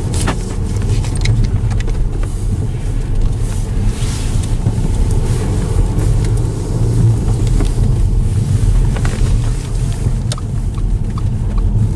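Car engine and road noise heard from inside the cabin while driving, a steady low rumble, with a few faint clicks.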